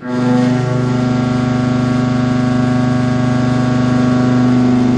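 Indexable milling cutter cutting steel in a CNC machining center, biting in suddenly and then running at a steady load: a loud, even hum of several steady tones from the inserts striking the metal, over a hiss.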